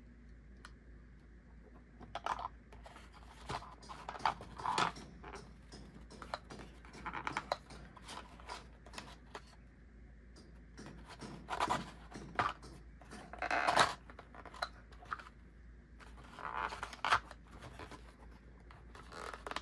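Handling noise from plastic action-camera mounts and accessories being lifted out of and set into a carrying case's compartments: scattered small clicks, scrapes and rustles.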